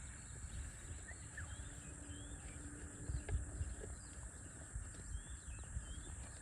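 Small birds chirping now and then, short high chirps, over a steady low rumble and a faint held hum.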